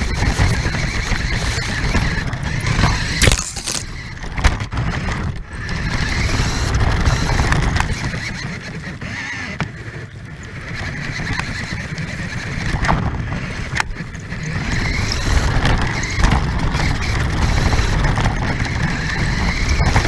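Radio-controlled car driving, heard from a camera mounted on it: the motor and gears whine, rising and falling in pitch as it speeds up and slows, over a low rumble from the wheels and chassis on rough ground. Several sharp knocks come as it bumps along.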